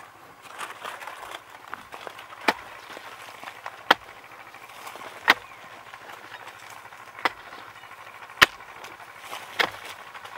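A hoe chopping into dry clay soil: six sharp strikes, one every second or two, with soil crumbling and scraping between them.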